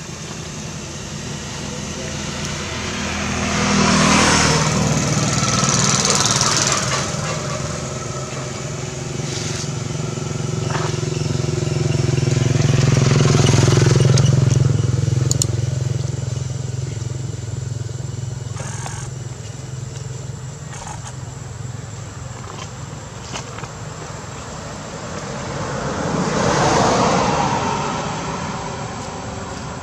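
Motor vehicles passing, their engine hum swelling and fading several times, loudest about fourteen seconds in, with voices in the background.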